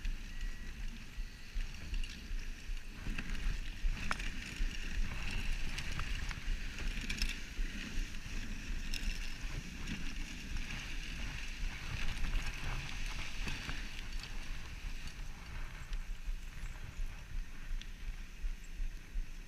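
Wooden dog sled gliding over a packed snow trail: a steady scraping hiss of the runners on snow over a low rumble, with a few light knocks from the sled.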